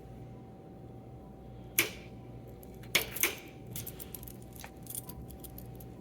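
A ring of keys jangling and clinking in short bursts, about two seconds in and twice around three seconds, then a few lighter clicks, over a faint steady hum.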